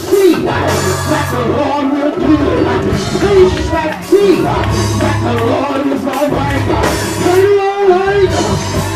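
Live gospel praise music: a lead voice singing over drums with cymbals, held bass notes and keyboard.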